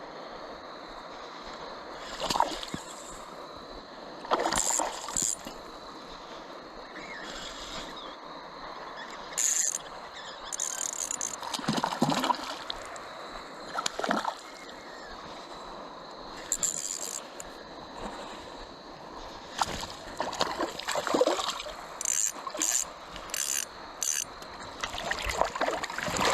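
Steady flow of a river with a series of short, irregular splashes, thickest near the end, as a hooked trout is played and landed in the shallows.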